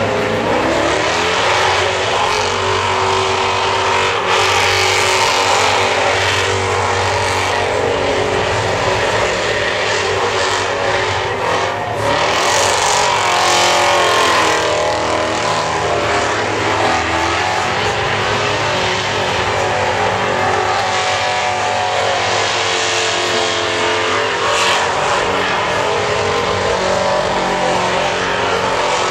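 A burnout car's engine revving hard at high rpm while the rear tyres spin and smoke. The engine note dips and climbs again several times, over a steady haze of wheelspin noise.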